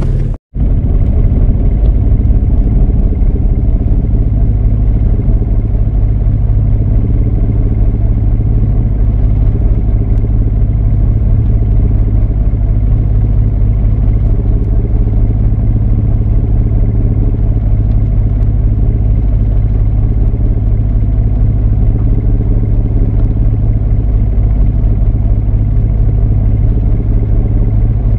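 Boat engine running steadily with a low, even drone. The sound cuts out for a moment about half a second in.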